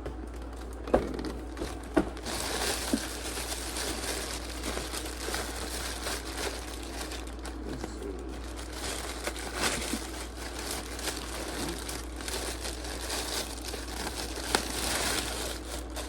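Parcel packaging being unwrapped and handled: a steady crinkling and rustling, with a few sharp clicks in the first two seconds.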